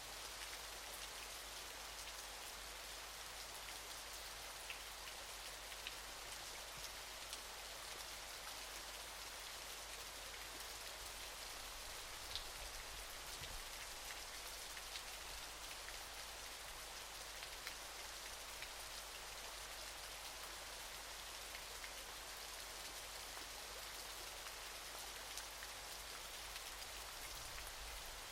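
Steady hiss of falling water from a waterfall, sitting high in pitch, flecked with small splashing drop ticks.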